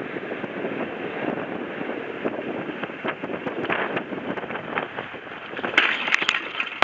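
Strong wind buffeting the microphone, a steady rushing noise, with a few sharp knocks about six seconds in as the beached catamaran tips over in the wind.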